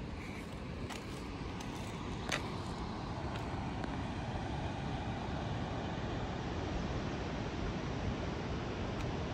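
Wind blowing across the microphone: a steady, fluttering rumble that grows slightly louder. One sharp click about two seconds in.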